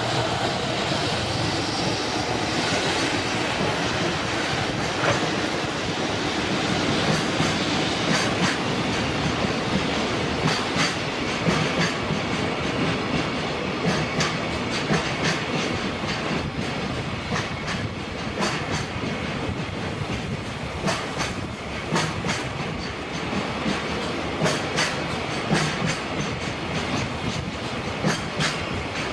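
Freight train of container wagons rolling past close by: a steady rumble of wheels on rail with repeated clickety-clack as the wheels cross rail joints.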